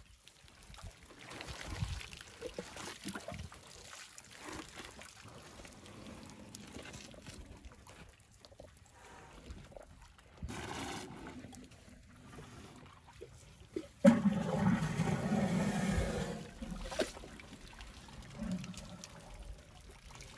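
African elephants drinking at a waterhole: water trickling and dripping from their trunks as they siphon it up and carry it to their mouths. A louder gush of water lasts about two seconds, a little past two-thirds of the way through.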